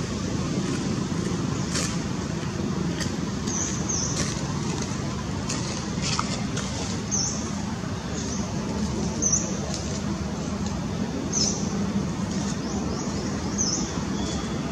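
Steady low background rumble, like road traffic, with a bird's short, high chirp falling in pitch, repeated about every two seconds.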